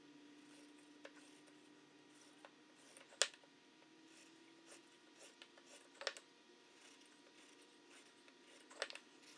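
Faint scratching of a marking gauge scoring layout lines into wood, with a few light clicks or taps as the gauge and workpiece are handled, about three seconds apart.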